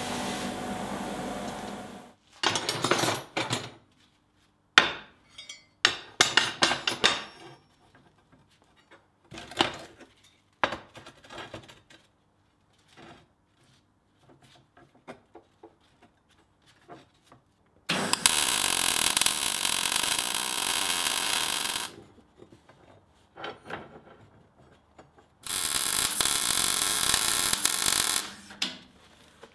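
A bench grinder runs for the first two seconds and cuts off. Scattered clinks and knocks of steel parts being handled on a workbench follow. Then come two bursts of MIG welding, each three to four seconds long, a steady crackling hiss.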